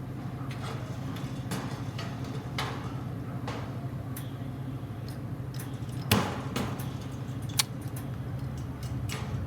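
Arc welder humming steadily, with scattered sharp cracks as the electrode is struck against the work without holding an arc. The loudest crack comes about six seconds in. The welder suspects a poor ground connection.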